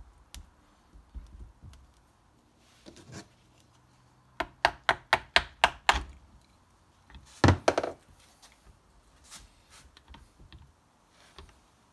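Small hammer tapping the housing of a Bafang Ultra G510 mid-drive motor to loosen it and work it off. There is a quick run of about eight light taps at roughly five a second, then a heavier cluster of three or four blows about a second and a half later, with softer handling knocks in between.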